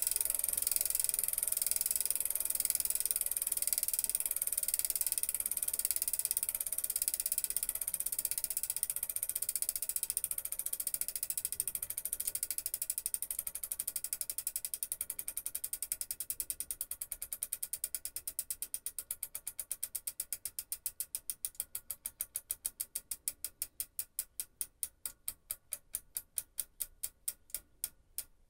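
Shimano MF-TZ21 screw-on bicycle freewheel ratcheting as the rear wheel spins on its own with the chain still: the pawls click over the ratchet teeth. The clicking starts as a fast buzz and slows gradually into separate clicks as the wheel spins down.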